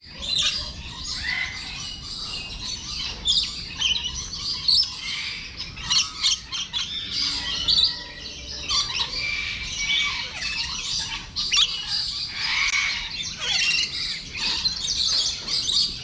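Many birds squawking and chirping together, with short calls overlapping continuously and no let-up.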